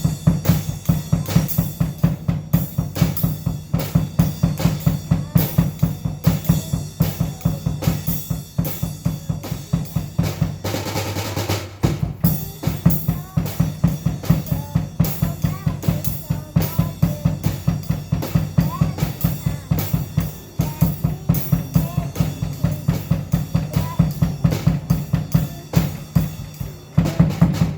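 Drum kit played in a fast, steady beat of kick and snare with music, with a short change in the pattern about eleven seconds in.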